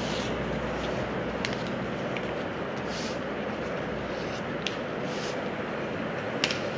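Sheet of coloured paper being folded and creased flat on a table, with a few faint rustles and taps over a steady background hiss.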